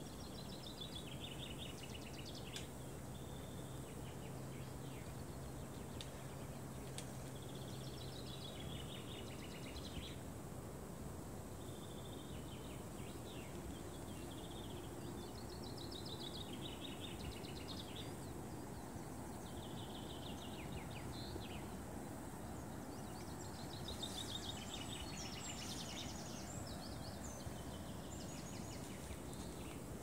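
A songbird singing the same short, quick, descending trilled phrase over and over, every few seconds, over a steady low background rush. A faint low hum runs under it for the first nine seconds or so.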